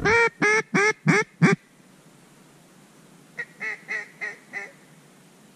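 Mallard-style quacking from a hunter's duck call: a loud, close string of five quacks, then a fainter string of five about two seconds later.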